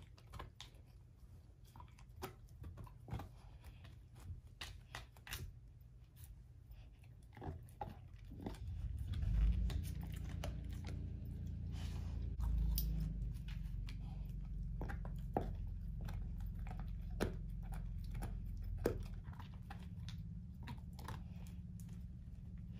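German shorthaired pointer gnawing an air-dried whole pig foot: irregular crunches and wet chewing and licking. A low steady rumble comes in a little over a third of the way through and carries on under the chewing.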